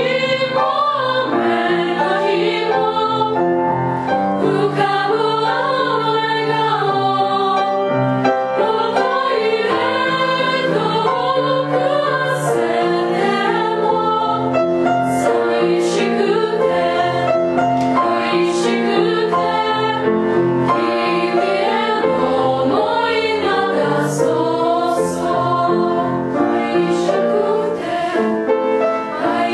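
Ukrainian girls' choir singing a choral piece in several voice parts, with long held notes.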